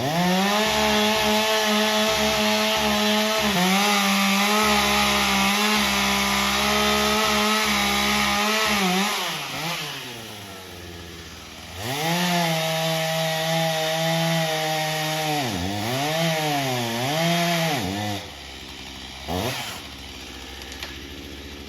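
Gas chainsaw running at full throttle while cutting a tree, its high engine note steady for about nine seconds. It eases off to idle, then is revved hard again for several seconds with two brief throttle dips, drops back to idle, and gives one short rev near the end.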